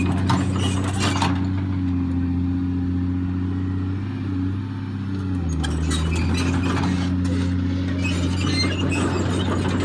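Volvo excavator's diesel engine running steadily, with bouts of metallic clinking and clanking near the start and through the second half. The engine note dips briefly in the middle, then returns.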